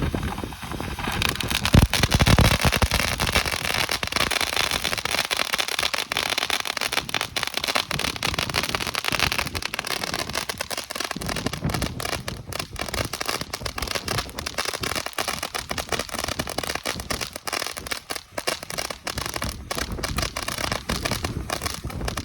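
Ground firework fountain spraying sparks with a dense crackling hiss, building about a second in and going on steadily.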